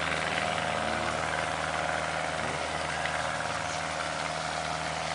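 Steady rushing of water from a small homemade waterfall, with a constant low hum beneath it.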